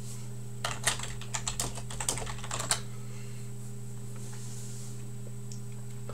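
Typing on a computer keyboard, a quick run of key clicks lasting about two seconds and stopping, over a steady low hum.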